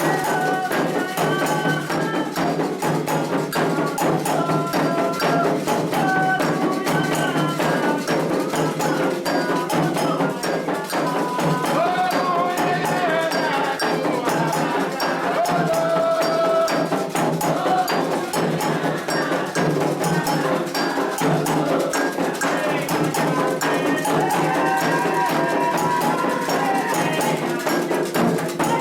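Candomblé toque for Iansã: atabaque hand drums beat a fast, dense rhythm with an agogô bell ringing over it, while voices sing a held, sliding chant.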